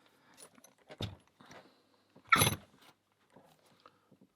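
Small Abus 65/15 brass padlock and its key being handled: a few light metal clicks and knocks, with one louder clack about two and a half seconds in.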